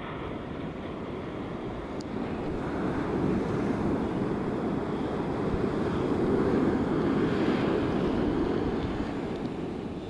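Wind on the microphone and surf on a beach: a steady low rush that grows louder about a third of the way in and eases near the end.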